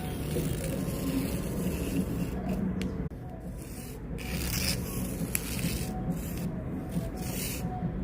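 Chalk rubbing and scraping across the drawing surface in several separate scratchy strokes, each a second or less long, over a steady low hum.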